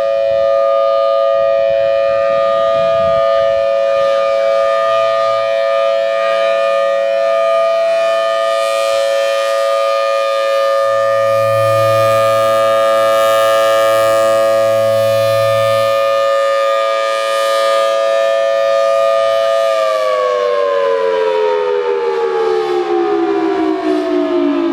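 Federal Signal Thunderbolt 1003 outdoor warning siren sounding its steady alert tone, a loud two-tone chord, during a tornado siren test. About 20 seconds in, the pitch starts falling smoothly as the siren winds down.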